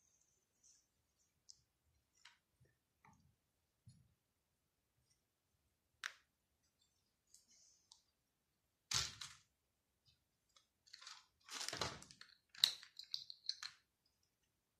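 Quiet handling noises: scattered small clicks and soft rustles, a louder brief rustle about nine seconds in, then a busier run of rustling and clicking near the end.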